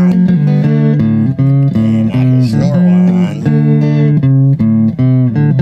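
Instrumental guitar music: a run of held, picked notes changing several times a second over a bass line, with no singing.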